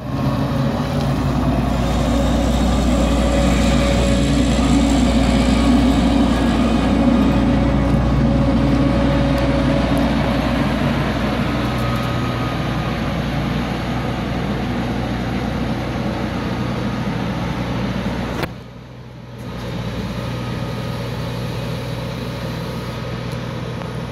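Claas Lexion combine harvester's diesel engine running steadily as the machine drives. The sound drops out briefly about three-quarters of the way through, then carries on a little quieter.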